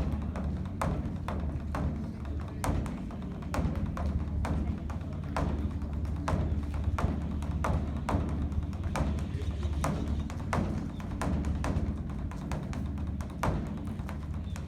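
Korean Buddhist dharma drum (beopgo) beaten with two wooden sticks in a continuous rolling rhythm. A deep booming drone is punctuated by sharp stick strikes about one to two times a second.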